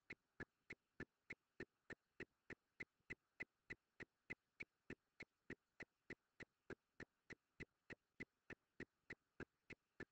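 Faint, even ticking, about three sharp clicks a second, with nothing else to be heard.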